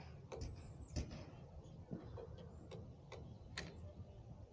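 Faint, irregular light clicks and taps, about eight in a few seconds, from hand work at a motorcycle handlebar while a hand grip is being fitted.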